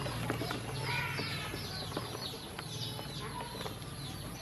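A brood of ducklings peeping, many short, high, falling cheeps overlapping without pause, with scattered light clicks among them.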